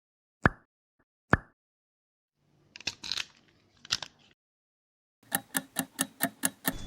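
Kitchen prep sounds: two sharp knocks, then some scraping and rustling, then a fast, even run of knocks or taps, about six a second.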